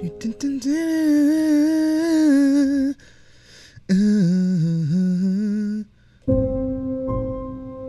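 Synthesizer notes played on a MIDI keyboard: two long held notes with a wavering pitch, a short break between them, then a steady held chord from about six seconds in.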